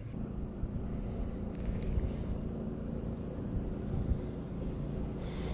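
Steady high-pitched chorus of insects, crickets or similar, over a low rumbling noise.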